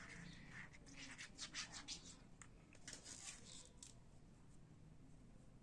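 Faint scraping and clicking of small sticks stirring a thickening glue-and-baking-soda slime mixture against the floor, a cluster of short scratches in the middle.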